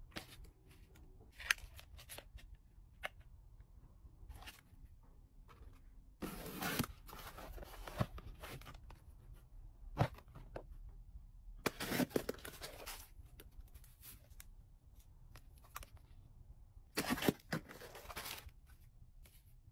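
Hands handling and unpacking cosmetics packaging: scattered taps and clicks on cardboard and plastic boxes, and three bursts of rustling cardboard and plastic wrap, about six, twelve and seventeen seconds in.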